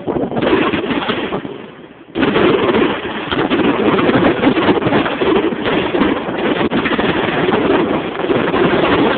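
Aerial fireworks going off in a dense, continuous barrage of bangs and crackles, picked up through a phone's microphone. It eases off briefly about two seconds in, then surges back even denser.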